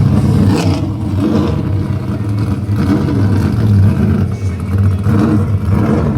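A car engine running loud and revving, its pitch rising and falling.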